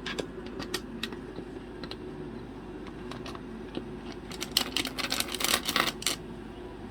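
Sharp clicks and rattles of a cockatoo's beak working a toy door lock. They come scattered at first, then in a rapid flurry about four to six seconds in.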